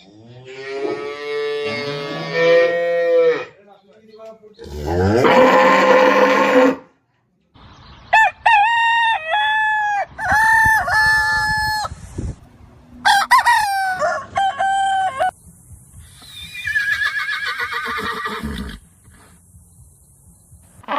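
A series of separate animal calls with short gaps between them, among them a rooster crowing several times near the middle.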